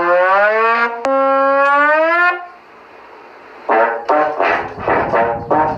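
Brass-horn sound effect, like a trombone: two long blared notes with a break about a second in, followed by a quieter stretch. From about two-thirds of the way in comes a run of short choppy bursts.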